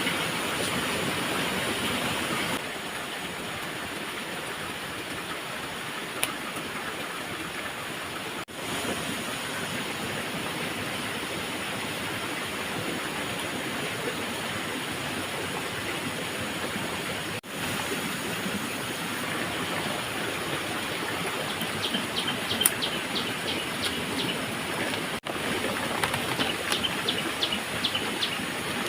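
Steady rushing of running water, a stream or small waterfall. Near the end, two runs of quick, high-pitched chirping sit over it.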